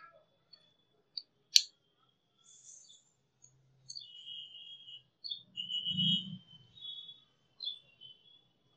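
Wooden pencils clicking and tapping against each other as they are handled, with the sharpest click about a second and a half in and a soft handling thump about six seconds in. Short high chirps sound faintly in between.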